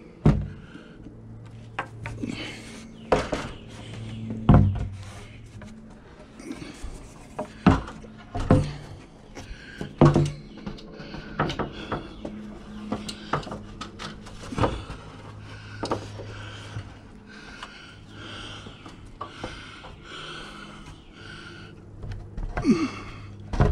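Irregular wooden knocks and bumps as a 2x8 rafter board is handled and shifted into place against the house wall. A steady low hum runs underneath.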